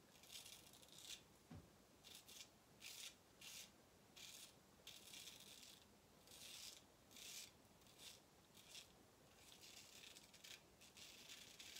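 Straight razor scraping stubble through shaving lather on the chin and neck: a string of short, faint scrapes.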